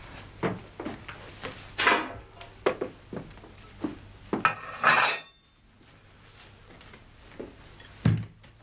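Small knocks, clicks and footsteps of people moving about a small room, with a longer grating burst with a ringing edge about halfway, and a wooden chair being moved and set down with a low thump near the end.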